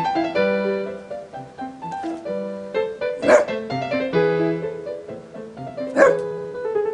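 A dog barks twice, once about three seconds in and again about six seconds in, over steady piano music.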